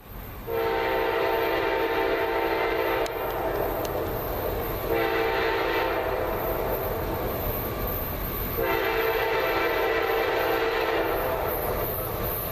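Freight locomotive air horn, on the lead unit, a GE C40-8W diesel, sounding three long blasts with short gaps between them, over the low rumble of the passing train.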